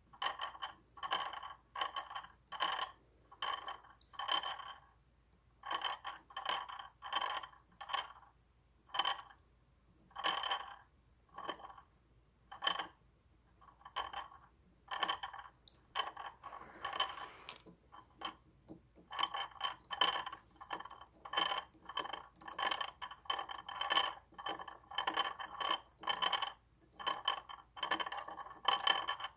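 Hand-turned magnets clinking and scraping against the metal in short rattling bursts, one or two a second, each with the same bright metallic ring, with a brief pause about two thirds of the way through.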